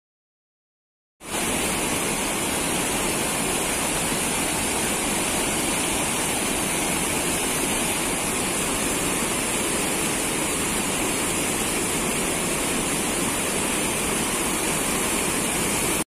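Muddy floodwater pouring over a low weir into churning white water below: a loud, steady rush that starts abruptly about a second in.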